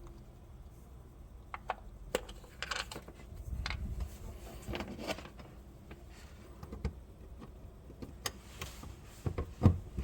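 Small AC geared motor of a hot-water heating valve actuator running with a low steady hum, switched on for testing, under scattered clicks and rustles of handling, with a sharper knock near the end.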